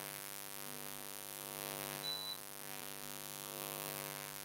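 Steady electrical mains hum with a buzzing edge, with a short high-pitched tone about two seconds in.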